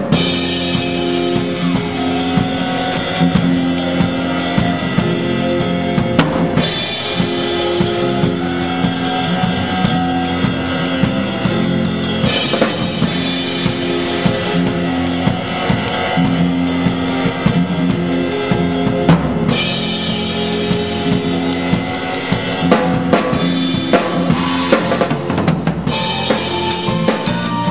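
Drum kit played close up in a pit orchestra: kick drum, snare and cymbals keep a dense, driving beat under held keyboard and band chords.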